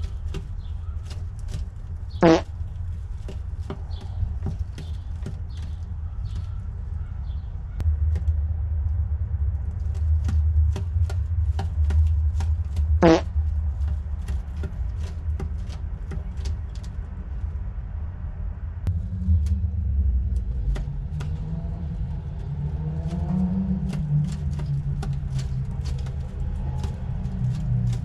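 Pigeon nest sounds over a steady low rumble: many light scattered taps and rustles, two sharp clicks, and in the last third a low wavering coo with rising and falling glides.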